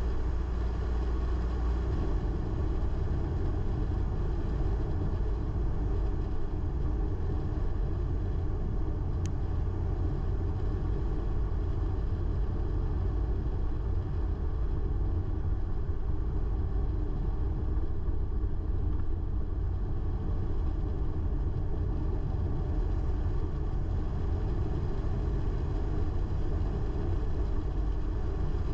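Car driving along a road: a steady low rumble of engine and tyres, with a single faint click about nine seconds in.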